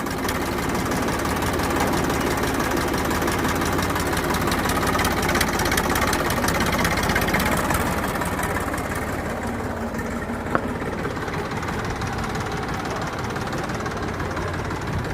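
Massey Ferguson 241 tractor's three-cylinder diesel engine running steadily, easing slightly about halfway, with one sharp click about ten and a half seconds in. The engine is freshly rebuilt and not yet run in.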